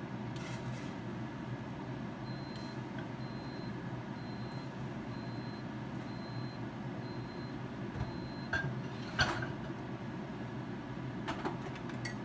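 A kitchen appliance beeping, about ten short high beeps in a row, over a steady low hum of a running appliance. Near the end come a few sharp clatters of kitchen utensils.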